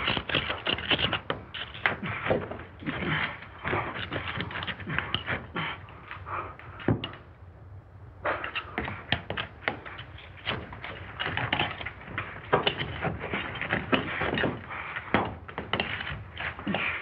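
Bricks being worked loose from a brick wall by hand and set aside: irregular knocks, taps and scrapes of brick on brick, with a short lull about seven seconds in.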